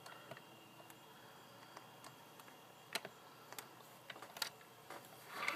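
Faint, scattered clicks and taps from a 1/18-scale diecast model car being handled and turned over in the hand, with a brief scuffing sound near the end.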